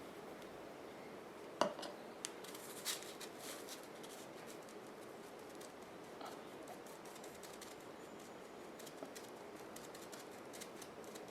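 Faint handling sounds at a craft table: parchment paper rustling, with a few light clicks and taps, the clearest about one and a half and three seconds in.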